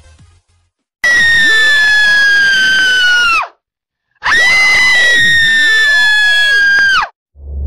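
Horror ghost-scream sound effect: two long, shrill, very loud screams, each about two and a half to three seconds, their pitch sagging slowly and then dropping away sharply at the end, with a short silence between them. A low rumble starts just at the end.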